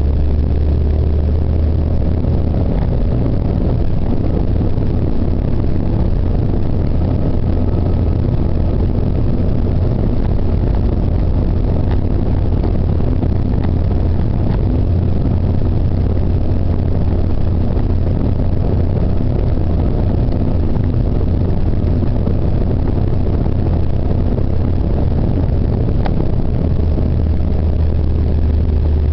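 Car driving at an even speed, heard from inside the cabin: a steady low engine drone under an even rush of road noise.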